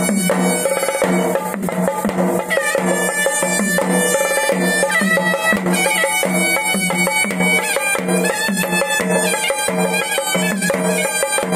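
Traditional Sri Lankan ceremonial music of Kandyan drums and a high wind instrument: the wind instrument holds long, shrill notes that step up and down in pitch over a steady, even drumbeat.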